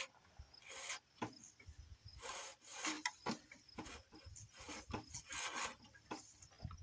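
Irregular rubbing and rasping of sandpaper against wood in short scrapes: a board being fitted under the drum of a Ryobi drum sander, with the drum turned by hand to set the sanding height.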